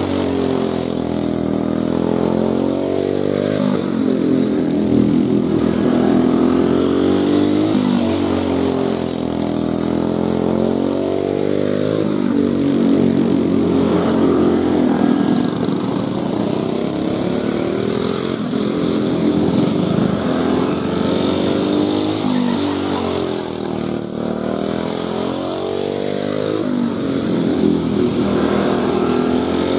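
5 hp Briggs & Stratton Raptor single-cylinder kart engine revving up and easing off again and again as the kart laps a small dirt oval, its pitch rising and falling every few seconds.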